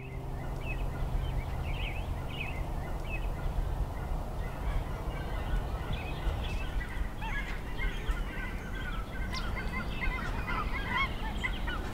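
Outdoor ambience of many birds calling and singing, short chirps throughout, over a steady low rumble.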